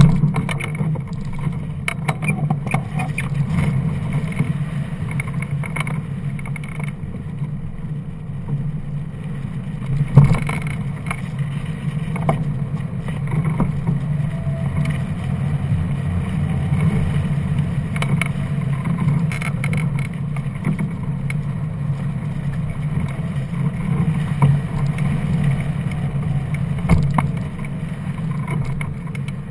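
Rushing airflow buffeting a hang glider's keel-mounted camera in flight: a steady low rumble of wind on the microphone that swells in gusts, with a sharper gust about ten seconds in.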